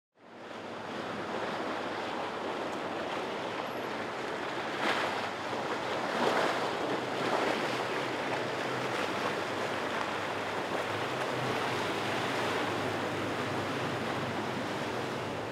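Steady wind and river water noise, fading in over the first second, with wind gusting on the microphone a few times partway through and a faint low hum underneath.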